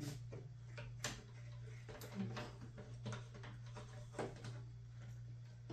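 Faint scattered clicks and light knocks of hands working on a computer case, over a steady low hum.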